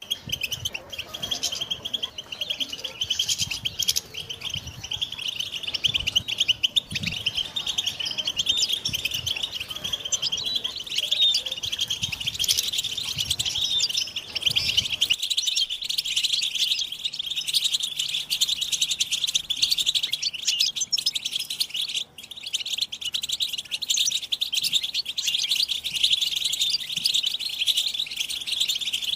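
European goldfinches in a group chorus of rapid, excited twittering and chattering calls, non-stop and densely overlapping: the mating and readiness calls played to stir a male goldfinch into song.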